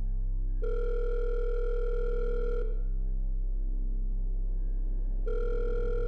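Telephone ringback tone heard through a phone held to the ear: two rings, each a steady two-second tone, with a pause of about two and a half seconds between them, while the call waits to be answered.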